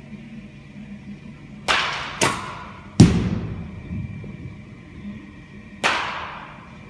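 Four sharp batting-practice impacts ringing and echoing in an indoor batting cage: bat-on-ball cracks and balls striking the netting or walls. The loudest, about three seconds in, is a deep thud. A low steady hum runs underneath.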